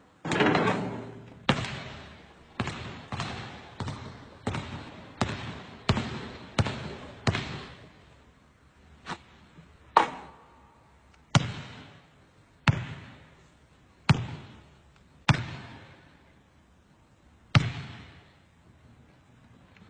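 A basketball bouncing hard again and again, each hit ringing on briefly after it. The bounces come about once a second or faster for the first eight seconds, then slow to single bounces every second or two.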